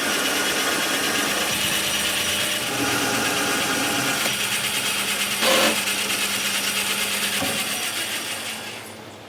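A power tool working on metal with a steady, harsh abrasive noise, a brief louder burst in the middle, then fading away near the end.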